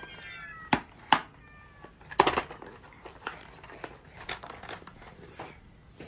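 A cat meow played twice from a children's sound book's small speaker, each a short, slightly falling call, the first right at the start and the second about a second and a half in. Sharp knocks and clatter of the book being handled, loudest a little after two seconds in.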